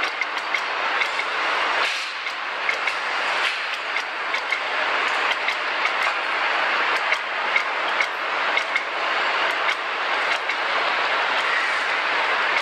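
Engine assembly line machinery noise: a steady mechanical hiss and hum with frequent, irregular metallic clicks and clanks and a few brief high pings.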